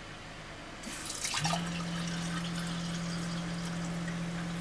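Water running and splashing, with a steady low hum joining about a second and a half in.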